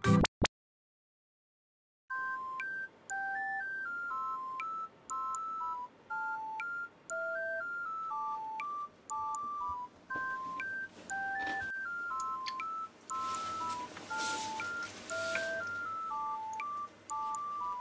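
Background music: a simple melody of pure electronic beep tones, one plain note at a time at about two notes a second. It starts after a brief silence.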